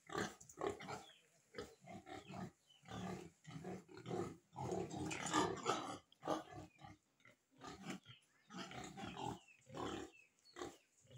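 Domestic pigs grunting over and over in short, irregular grunts, with a longer, louder run of grunting around the middle.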